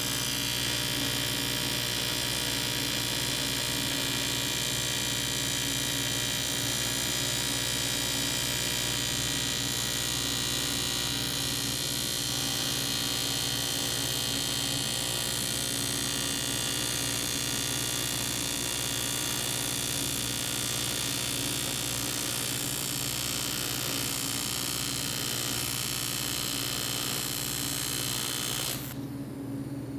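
AC TIG welding arc on an aluminium bicycle frame, laying a bead with filler rod: a steady buzz with a hiss over it, cutting off abruptly near the end as the arc is stopped.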